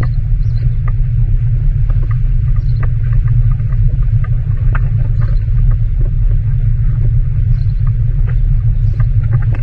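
Wind buffeting the microphone: a loud, unsteady low rumble, with faint scattered ticks above it.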